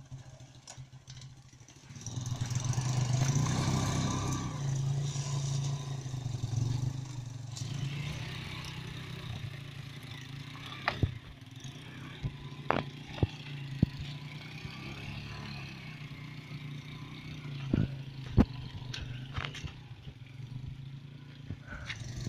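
Engine of a homemade two-wheel-drive motorcycle running under load as it is ridden through mud and water, swelling up about two seconds in and then pulling steadily. Several sharp knocks and clacks come in the second half.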